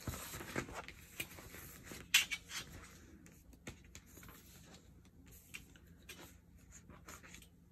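Paper sticker sheets being shuffled and set down on a desk: soft rustles and light taps, the loudest about two seconds in.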